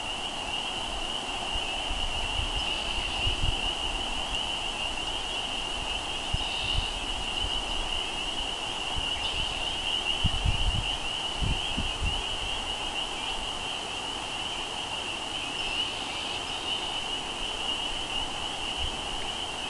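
Spring chorus of frogs calling from a marsh: many overlapping calls blending into a steady, high-pitched shimmer. Wind bumps on the microphone a little past the middle.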